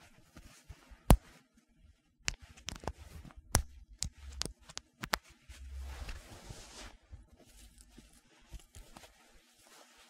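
Jacket buttons being worked: a series of sharp, irregular clicks, the loudest about a second in, with a stretch of fabric rustling around the middle.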